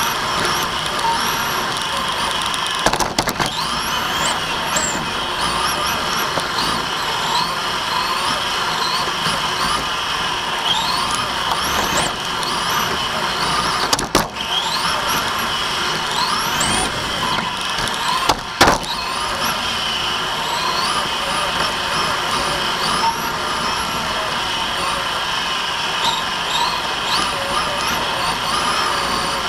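Onboard sound of a Team Associated TC5 1/10 electric touring car racing: the motor and drivetrain whine rises in pitch again and again as it accelerates out of corners, over a constant hiss of tyre and gear noise. Three sharp knocks stand out, a few seconds in, about halfway, and about two-thirds of the way through.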